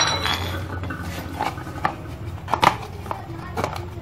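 Several light clinks and knocks of hand tools and metal pump parts being handled and set down on a concrete floor, with a steady low hum underneath.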